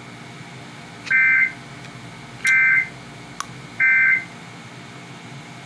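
Emergency Alert System End-of-Message data burst: three short bursts of warbling SAME digital data tones, each about half a second long and spaced a little over a second apart, signalling the end of the alert. A single sharp click falls between the second and third bursts, over a faint steady hum.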